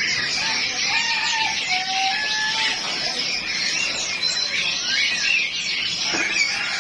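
Many caged birds chirping and chattering together, lovebirds among them, a dense continuous chorus with a few longer whistled notes in the first few seconds.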